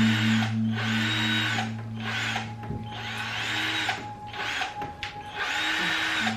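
A power tool running in repeated surges about a second apart, over a steady low hum that drops out about halfway through.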